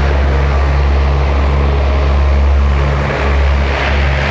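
Lockheed C-130 Hercules' four T56 turboprops running on the ground: a steady, loud drone with a constant low propeller hum.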